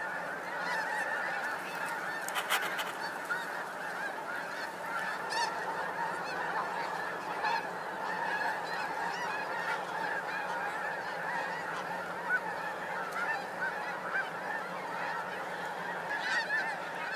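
A large flock of snow geese calling all at once, a dense unbroken chorus of overlapping high honks as the birds drop in and feed on the field.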